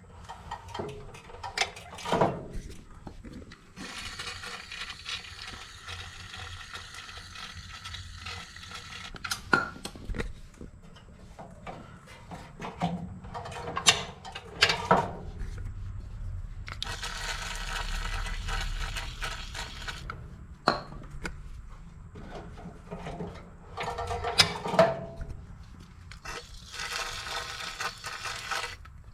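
Aerosol can of PB Blaster penetrating oil sprayed in three long hisses onto the hammers of a chipper shredder, with metal clinks and knocks in between as the hammers are moved by hand.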